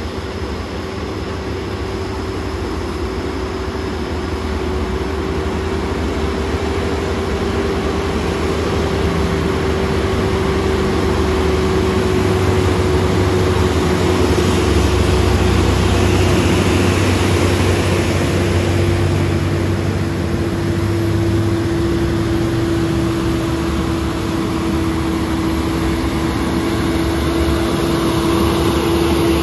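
Heavy diesel trucks running past in a line, a Hino tanker and then a MAN tractor unit, with a low engine rumble that builds to its loudest about halfway through. A steady whine runs under the engine noise and drifts slightly lower in pitch.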